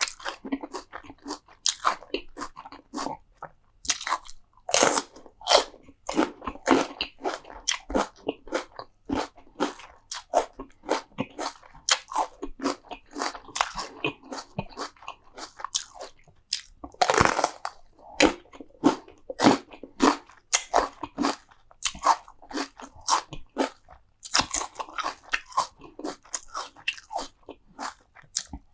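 Close-miked eating: a person biting and chewing crunchy food, a rapid irregular crackle of crunches with a few louder bites, the loudest about 17 seconds in.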